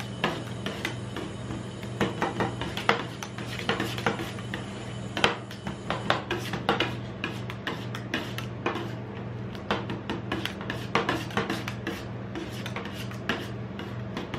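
Two metal spatulas chopping, scraping and tapping on a frozen steel ice-cream-roll plate as they mash and spread a Nutella ice cream mixture. The strokes come quickly and irregularly, over a steady low hum.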